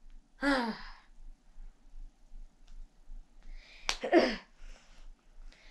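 A child's brief wordless vocal sounds, one near the start and one about four seconds in. The second is led by a breath and a sharp click.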